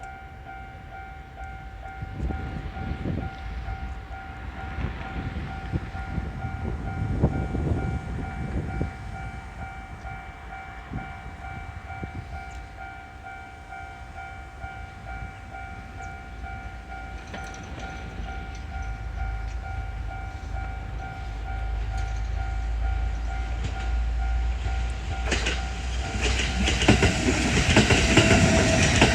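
Railroad crossing alarm ringing in a fast, even, repeating pattern throughout. A rumble swells and fades a few seconds in. Toward the end a Kintetsu 9020 series electric train comes up and passes the crossing, its rumble building and its wheels clattering over the rail joints, growing loud over the last few seconds.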